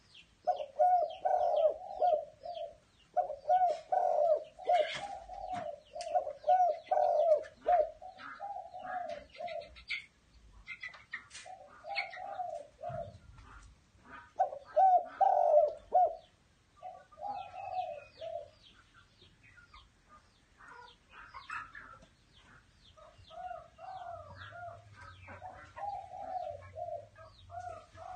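Zebra dove (Malay dove) cooing: runs of rapid, short, rolling coo notes in several phrases, with pauses between them. The phrases are loudest in the first third and softer near the end.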